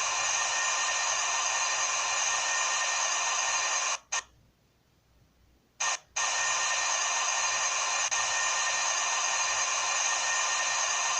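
Steady mechanical whine made of many fixed tones. About four seconds in it cuts off abruptly to near silence, then comes back just as suddenly about two seconds later and runs on steadily.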